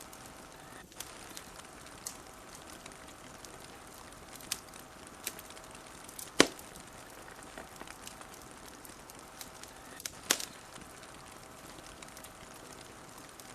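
Wood fire crackling: scattered sharp pops and snaps over a steady soft hiss, the loudest pop about halfway through and a double snap a few seconds later.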